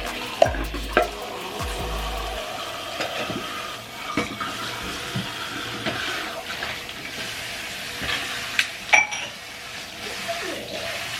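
Kitchen tap running into a sink, with a few sharp clinks of small hard items, like cabinet handles, being washed.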